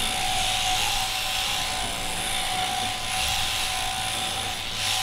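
Sheep-shearing handpiece on its drive shaft running steadily as it cuts through a sheep's fleece, a constant mechanical buzz.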